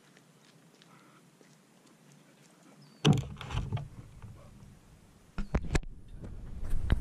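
Handling noise from an action camera being picked up: a sudden knock against the camera or its mount about three seconds in, a few sharper knocks around five and a half seconds, then close rubbing and bumping on the housing building toward the end.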